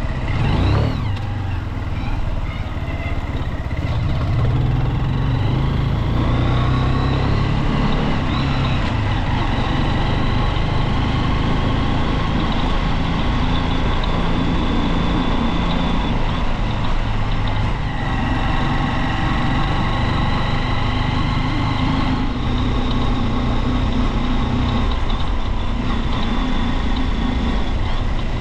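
Junak Vintage motorcycle engine running on the move: its pitch climbs as it accelerates over the first several seconds, then holds steady at cruising speed, over a heavy low rumble.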